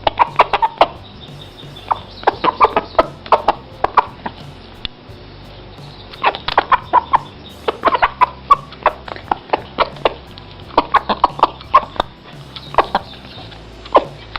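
A pet eating noisily: quick clicking smacks in clusters of about a second, with short gaps between the clusters.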